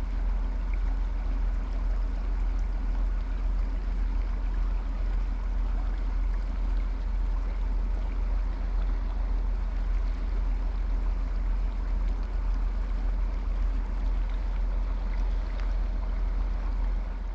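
Steady rush of flowing river water, under a heavy low rumble that holds even throughout.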